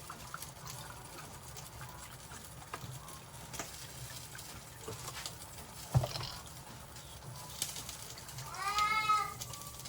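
Quiet kitchen handling sounds: faint clinks and a sharper knock about six seconds in, as stock is measured into the couscous pot. Near the end comes a short, high-pitched call, rising then falling, about a second long.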